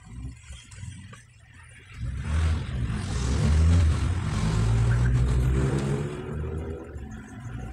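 A motor vehicle's engine running, swelling from about two seconds in and fading again near the end.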